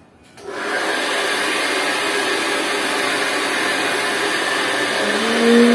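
Handheld hair dryer switched on about half a second in, then blowing steadily as long hair is blow-dried.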